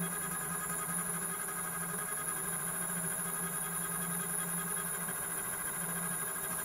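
CO2 laser engraving machine running while it engraves a glass on its rotary attachment: a steady hum with a constant high whine.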